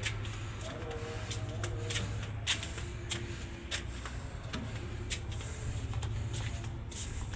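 Steady low hum of a ship's machinery, with scattered sharp clicks and knocks on top.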